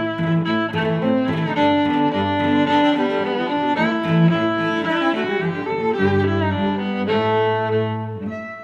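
Background music played by bowed strings, violin and cello over a low bass line.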